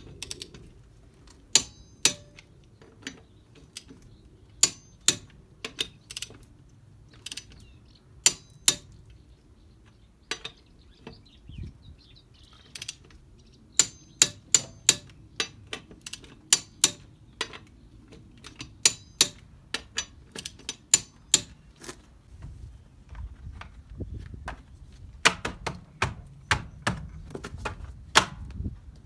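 Hand ratchet clicking in short bursts as the road wheel's bolts are run in and tightened, groups of sharp ticks with pauses between.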